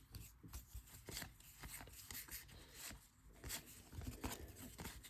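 Faint rustling and light clicks of baseball trading cards being handled and flipped through one by one.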